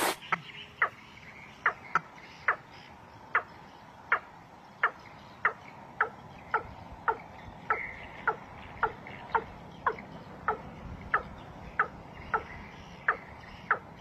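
A bird call: one short note repeated over and over in a steady rhythm, about three notes every two seconds. A brief burst of wing-flapping opens it.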